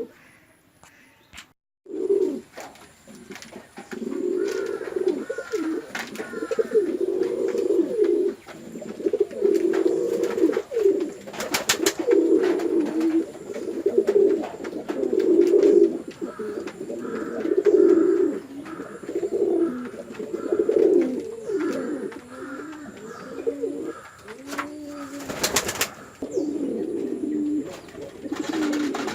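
Domestic pigeons cooing in a long run of overlapping, repeated low coos, with a few sharp clacks among them. The cooing starts about two seconds in, after a near-silent moment.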